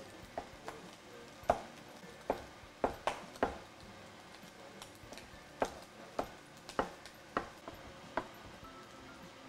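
Chef's knife slicing and dicing peeled tomatoes on a wooden cutting board: irregular knocks of the blade striking the board, about a dozen, with a short pause in the middle.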